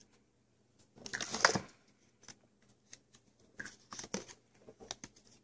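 Handling noise from Play-Doh and its plastic tools: a short rustling scrape about a second in, then scattered soft clicks and rustles.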